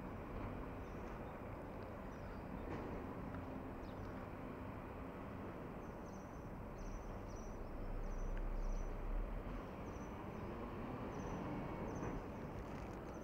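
Street ambience: a steady hum of traffic, with a vehicle passing louder about eight to nine seconds in. Small birds chirp in short, high notes over it, more often in the second half.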